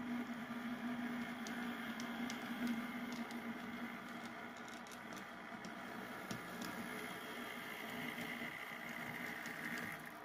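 HO scale diesel switcher model locomotive running slowly along the track: a steady motor and gear hum with scattered light clicks from the wheels on the rails, dropping off near the end as it moves away.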